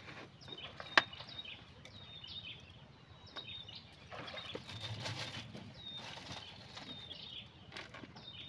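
A bird repeating a short, high call about once a second. A single sharp click comes about a second in, and a soft rustle about four seconds in.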